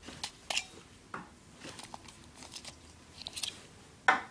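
Batteries being pried out of a 2012 Furby's plastic battery compartment: a string of small scattered clicks and knocks, with a sharper knock about four seconds in.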